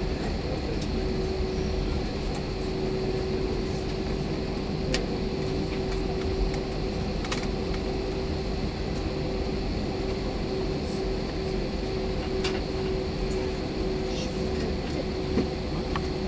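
Airbus A321 cabin noise while taxiing, heard inside the cabin: a steady hum from the idling jet engines and the cabin, with a steady low tone through it and a few faint clicks.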